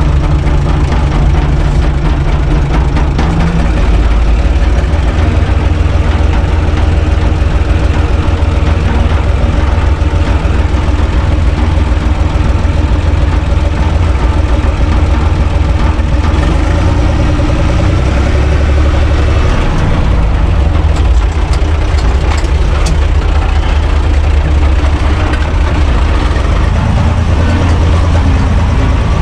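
UTB 445 tractor's diesel engine running steadily while driving, heard loud from inside the cab as a low drone. The engine note dips briefly about two-thirds of the way through, then steadies again.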